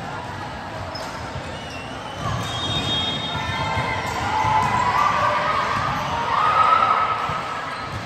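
Volleyball game sounds in a gym: ball hits amid a din of player and spectator voices, swelling from about two seconds in, loudest near the end, then easing off.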